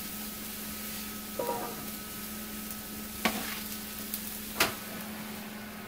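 Oiled onions and mushrooms sizzling on a hot sheet pan, a steady hiss under a low steady hum. Two sharp clanks cut in, about three seconds in and again a second and a half later.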